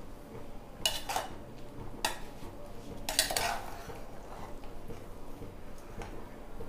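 A metal spoon clinking and scraping against metal dishware in a few short bouts in the first three and a half seconds, the last one longer, as syrup-soaked boondi is lifted out of the sugar syrup onto a plate.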